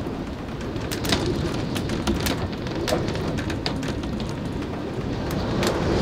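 Strong wind buffeting an RV from outside, heard as a steady rushing rumble with scattered sharp ticks and taps.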